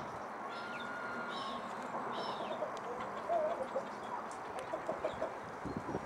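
Mallard giving a run of short, low calls in quick succession from about halfway in, over a steady background hiss, with a few faint high small-bird chirps earlier.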